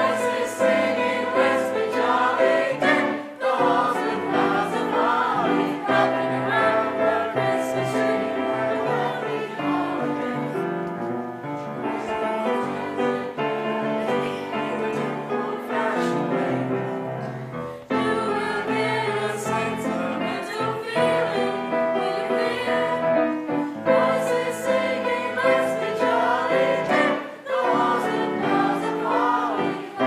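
School choir singing in parts with grand piano accompaniment, with short breaks between phrases.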